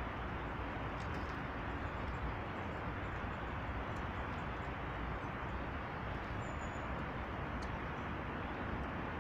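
Steady rushing outdoor background noise, with a few faint, brief high bird chirps and one short thin whistle about six and a half seconds in.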